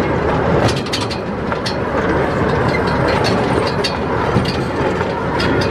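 Small park ride train running along its narrow-gauge track: a steady rumble and rattle from the cars and wheels, with frequent sharp clicks.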